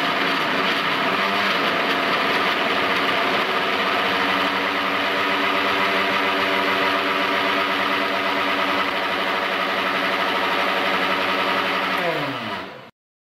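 Countertop blender motor running steadily at speed, blending a thick kiwi smoothie in its jar. About twelve seconds in it is switched off: the whir drops in pitch as the motor winds down and stops within a second.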